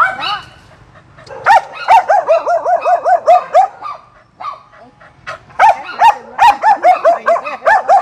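A dog barking in fast runs of short, high, yelping barks, about four a second, in two bouts with a pause in the middle. The dog is scared of the vaccination syringe.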